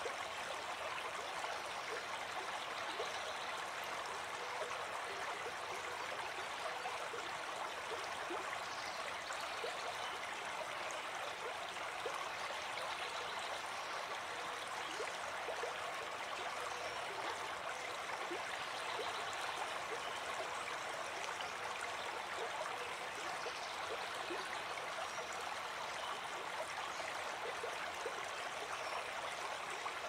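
Babbling brook: shallow water running over rocks, a steady, even rush with no breaks.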